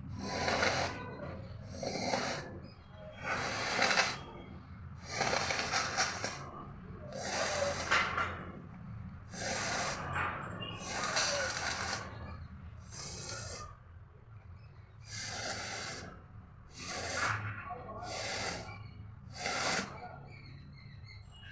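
A person blowing their nose hard over and over: a long series of short, forceful blasts of air through the nose, one every second or so.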